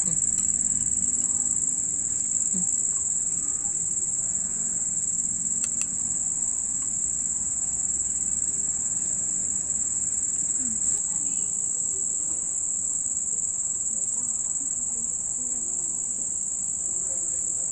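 Crickets chirring in one steady, unbroken high trill.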